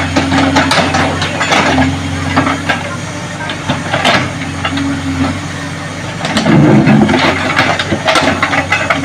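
JCB excavator's diesel engine running steadily while the bucket digs, with repeated clanks and scrapes of metal on earth and stones. A louder, heavier surge comes about six and a half seconds in.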